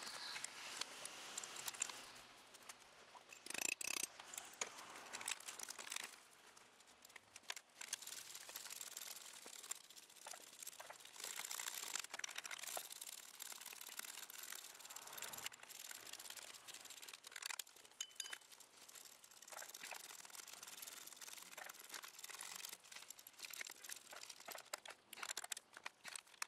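Faint, intermittent clicking of a small ratchet wrench and light metal knocks as the power steering pump's mounting bolts are run in and tightened by hand.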